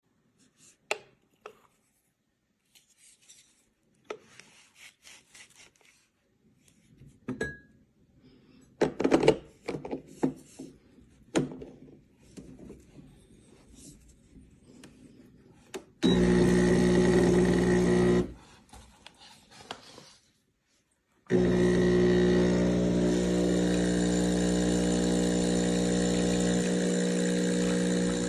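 Scattered clicks and knocks of handling, then the CHULUX Slim espresso machine's 20-bar pump starts a loud, steady buzzing hum about halfway through. It stops for a couple of seconds, then starts again.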